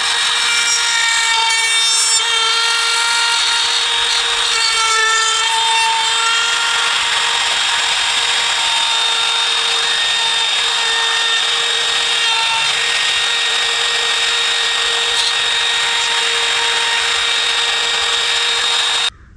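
Hercules electric router running at full speed with a steady high whine, its bit cutting a hinge mortise into a wooden door edge guided by a template jig. The pitch dips slightly now and then as the bit takes load, and the sound cuts off suddenly near the end.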